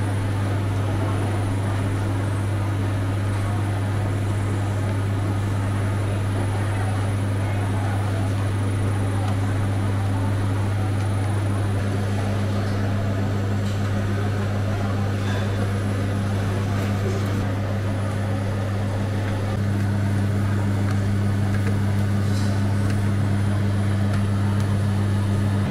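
Steady low machine hum in a bakery workroom, with a few faint clicks in the second half.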